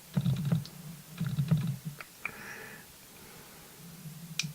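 Sigma 18-200 lens autofocus motor chattering, picked up by the camera's own microphone: three short bursts of buzzing with rapid clicks as the focus hunts. A few light separate clicks between them.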